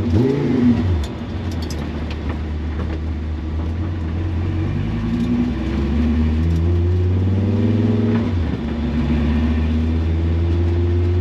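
Race car engine under way, heard from inside the cockpit, over road noise. Its note swoops up and back down in the first second, climbs slowly for several seconds, drops near eight seconds and then holds steady.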